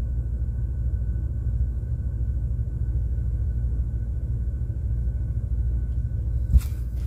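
Steady low hum of a ship's engines and machinery, with a faint steady whine above it. A single thump about six and a half seconds in.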